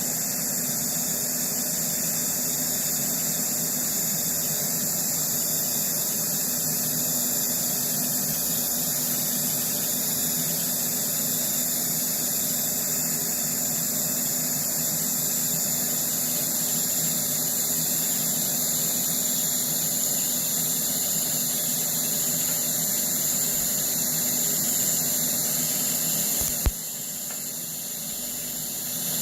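TIG welding arc burning steadily with a constant hiss and low buzz. Near the end a sharp click is heard and the sound drops quieter.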